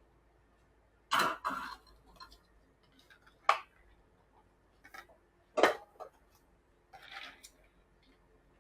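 Drink-making clatter behind a coffee bar: a handful of sharp knocks and clinks of cups and utensils as an iced espresso drink is put together, with a short rattle near the end.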